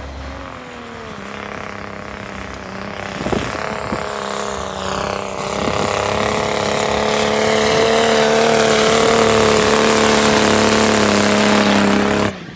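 A 4x4's diesel engine running hard under load in deep snow, held at a steady high pitch and getting louder, with a hiss over it. It cuts off abruptly shortly before the end.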